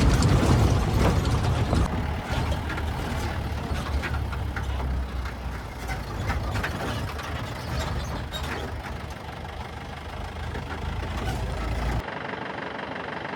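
Safari jeep's engine running as it drives over a rough, stony forest track, with a steady low rumble and frequent knocks and rattles. About a second before the end the sound changes abruptly to a quieter, duller engine sound.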